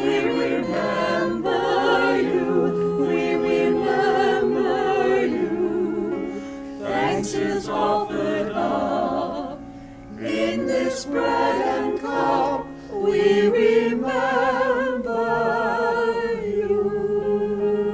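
Mixed choir of women's and men's voices singing a cappella, holding sustained chords with vibrato, with a brief pause between phrases about ten seconds in.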